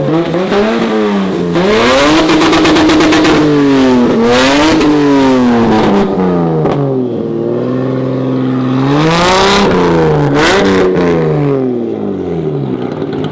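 A supercar engine revving repeatedly while stationary. Its pitch climbs and falls several times, with two longer high-rev pulls about two seconds in and again near the middle, then it settles lower near the end.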